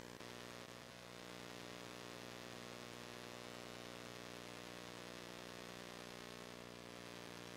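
Arthroscopic motorized burr running at a steady speed, a faint even whine, while it shaves bone from the acetabular rim in a pincer resection.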